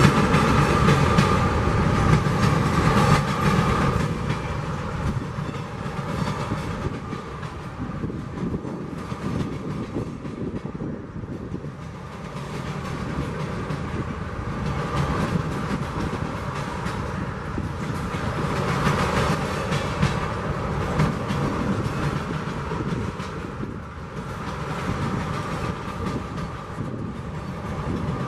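Freight train of tank cars rolling past: a steady rumble of steel wheels on rail with clickety-clack over the rail joints. It is loudest in the first few seconds, then swells and eases as the cars go by.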